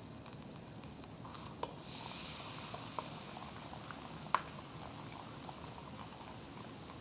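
Fanta orange fizzing as gelatin powder is stirred into it, with a plastic stirrer ticking against the glass measuring jug. The fizz swells about a second and a half in and then dies back, and the loudest tick comes a little past the middle.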